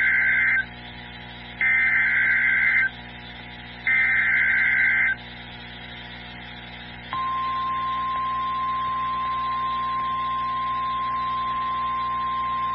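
Emergency Alert System SAME header: three bursts of digital data tones about a second apart, the first already under way. About seven seconds in, the steady single-pitch NOAA Weather Radio 1050 Hz warning alarm tone starts and holds, announcing the next warning.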